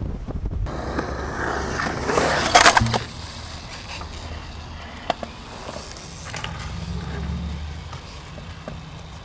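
Skateboard wheels sliding on asphalt, a hiss that builds and stops abruptly about three seconds in. Then skateboard wheels rolling on concrete, a steady low rumble with a sharp clack about five seconds in.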